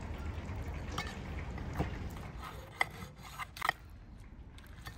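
A knife cutting through the crisp crust of deep-fried chicken, which crunches and crackles in a few short, sharp snaps, the last ones clustered near the end.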